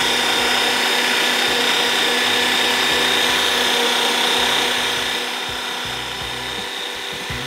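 Electric meat grinder motor running steadily with a high whine while cooked fish shami-kebab mixture is pushed into its hopper with a plastic pusher and ground into mince. The sound eases slightly after about five seconds.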